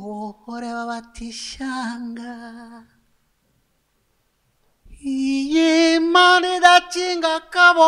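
A man singing unaccompanied: a lower phrase of long held notes with vibrato, then after about two seconds of silence a higher, louder phrase.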